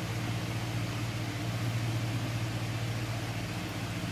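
Steady low machine hum with an even hiss, unchanging throughout, like a running motor or fan.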